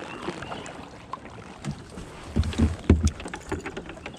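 Kayak being paddled: water swishing off the paddle, with small clicks and a few heavy knocks against the hull about two and a half to three seconds in.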